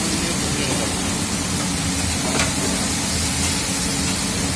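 Steady hiss over a low, even machine hum, with a single short click about two and a half seconds in.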